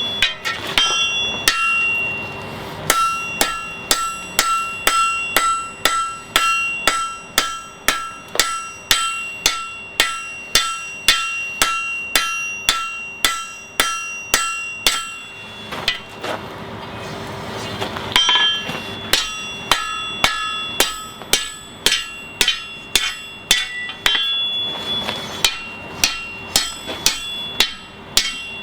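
Blacksmith's hammer striking hot steel on an anvil at about two blows a second, each blow ringing. The blows pause for a few seconds about halfway through, then carry on.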